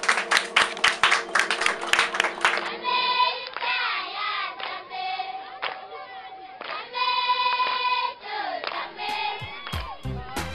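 Rhythmic clapping, about three claps a second, over music with held notes, then, about three seconds in, a group of schoolchildren singing together in chorus.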